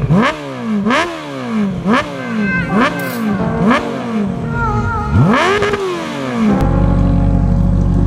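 Motorcycle engine revved in short throttle blips about once a second, each rising fast and dying back, with one longer rev about five seconds in. Electronic music with a heavy bass comes in at about six and a half seconds.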